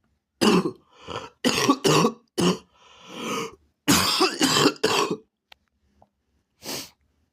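A person coughing hard in a fit: two quick runs of harsh coughs with a longer, quieter sound between them about three seconds in, then one last cough near the end.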